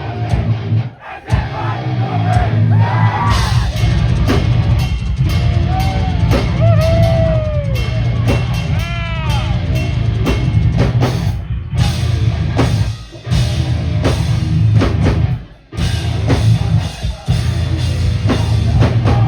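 Live heavy metal band playing loud: pounding drums and heavy distorted guitars, broken by a few sudden brief stops, with the music cutting off at the end.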